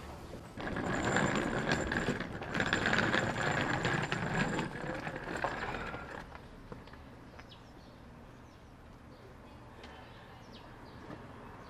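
Wheels of a rolling suitcase rattling over pavement for about five seconds, with a thin high squeal, then stopping.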